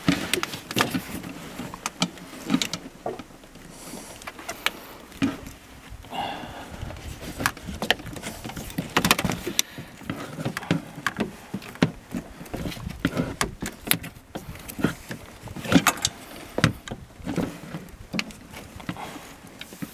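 Irregular metallic clicks and knocks of a socket tool being worked onto the serpentine belt tensioner's bolt, with handling noise in between.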